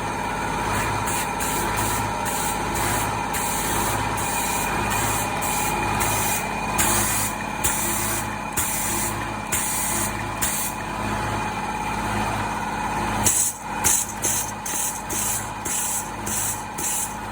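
Balkancar forklift running steadily, with a constant high whine over the engine hum and a hiss that keeps cutting in and out, more often after about 13 seconds.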